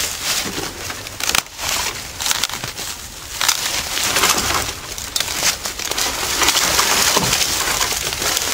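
Maple sapling's trunk cracking and splintering at the axe-cut notch as it is pulled over, a run of crackles and snaps, with its branches rustling against the surrounding trees.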